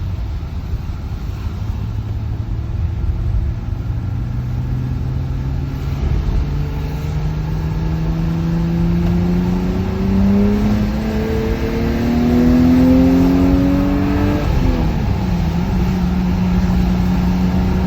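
BMW M20B25 2.5-litre inline-six of a stock E34 525i being revved during warm-up, through its stock exhaust. The engine speed climbs slowly and steadily for about fourteen seconds, drops back quickly, then holds steady at a raised speed.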